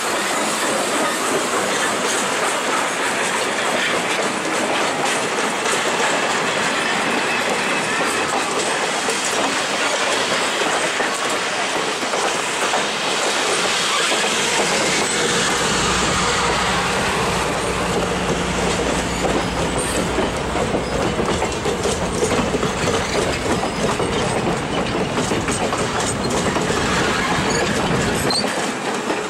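Passenger cars of a train rolling past at close range: steady wheel-on-rail rumble with a continual clickety-clack of wheels over rail joints, growing heavier in the low end about halfway through.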